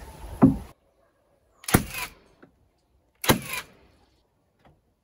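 A thump right at the start, then two sharp knocks on the wooden wall about a second and a half apart, each followed quickly by a quieter second hit, as battens are fastened to the board-and-batten siding.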